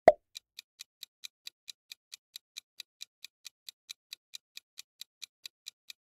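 Quiz countdown-timer sound effect: clock-like ticking, about four to five ticks a second, evenly spaced. It opens with one short, loud sound effect as the new question comes up.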